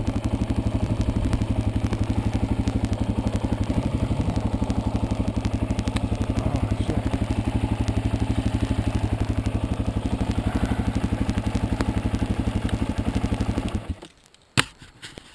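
Dirt bike engine idling with a steady, even pulse, then shut off near the end, followed by a single sharp knock.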